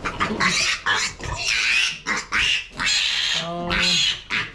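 Piglet squealing in a run of repeated screams as it is caught and held up.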